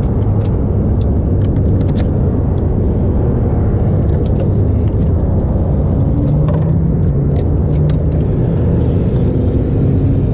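Ducati 1299 Panigale S's 1285 cc Superquadro L-twin engine idling with a loud, steady rumble, heard close up from the saddle. A little past halfway its note rises slightly for a few seconds, then settles again.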